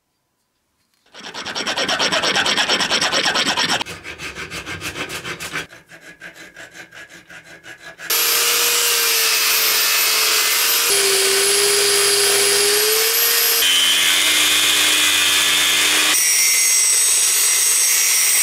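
Quick rhythmic scraping strokes of a hand tool working steel, loud at first and then quieter and sparser. Then, about eight seconds in, an angle grinder's cutting disc cuts through a steel part with a loud, steady whine that steps to a new pitch a few times.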